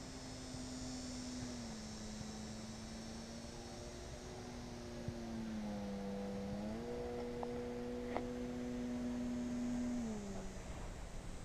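Electric motor and propeller of a TechOne Air Titan RC plane droning steadily overhead. Its pitch drops a little about two seconds in, dips lower around six seconds, jumps back up a second later and falls again near the end, over a low wind rumble on the microphone.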